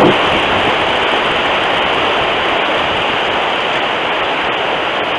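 Thunderstorm wind and rain picked up by a trail camera's microphone: a steady rushing noise, easing down from a louder gust right at the start.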